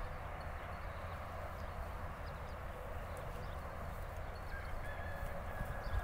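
Horse jogging on a soft sand arena: muffled hoofbeats in the dirt over a steady outdoor hiss, with a faint thin whistle in the second half.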